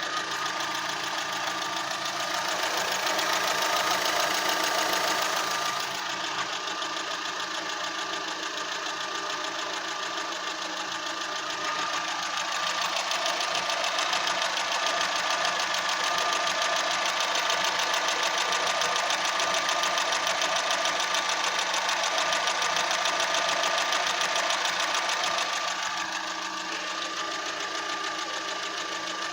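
Fiat Punto engine idling roughly, louder for a few seconds at a time and then easing. This is a rough idle that new spark plugs, leads and air filter have not cured; the engine drives fine but shakes at idle.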